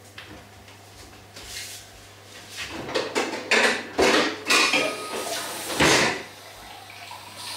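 Kitchen clatter of pots and dishes being handled at the sink: a run of knocks and rattles from about a third of the way in until shortly before the end.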